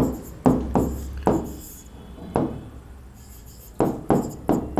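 Pen or stylus tapping and knocking on the glass surface of an interactive display board during handwriting, in quick irregular strokes with a pause of about a second in the middle.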